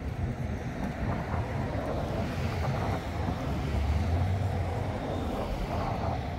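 Wind buffeting the microphone in gusts, over the steady rush of river water.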